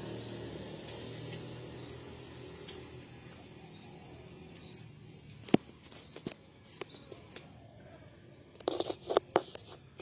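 Birds chirping in short calls, over a low hum that fades away during the first few seconds. In the second half come several sharp clicks and knocks; the loudest single one is about halfway through, and there is a quick cluster of them near the end.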